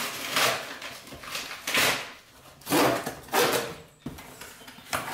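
Cardboard parcel being opened and handled by hand: about four short bursts of tearing and rustling.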